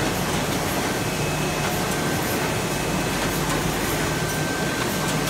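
ZD-QFP20 sheet-fed square bottom paper bag machine running: a steady mechanical noise with a low hum and a faint, thin high whine.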